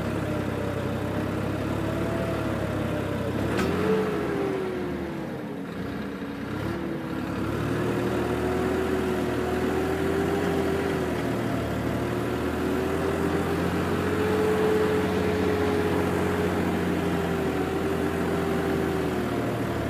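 Swaraj tractor's diesel engine running steadily under load while pulling a three-bottom mouldboard plough, its pitch rising and then sagging about four seconds in. It is pulling hard, perhaps because the ground is wet in places.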